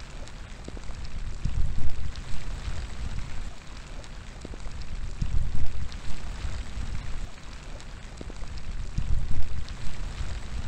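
Steady rain falling, with scattered drop ticks, and gusts of wind swelling and fading about every four seconds.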